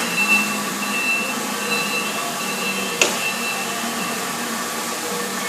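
Steady machine hum with a high whine that comes and goes, and one sharp click about three seconds in.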